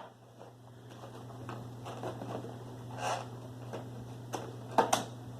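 Plastic toy packaging and pieces being handled: soft rustling about three seconds in and a few sharp clicks near the end, over a steady low hum.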